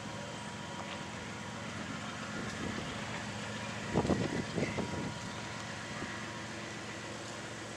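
Norfolk Southern GE ES44DC diesel locomotive's V12 engine running steadily as it pulls a train toward the listener, a low even drone. A short flurry of knocks comes about four seconds in.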